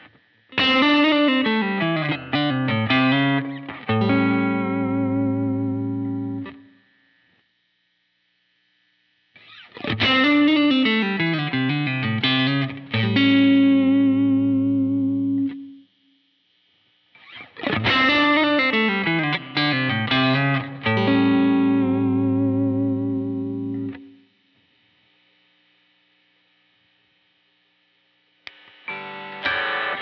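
Electric guitar through an Anasounds Lazy Comp compressor and Savage drive pedal, playing the same short phrase three times: a quick falling run of notes that ends on a held chord with vibrato, ringing out before each pause.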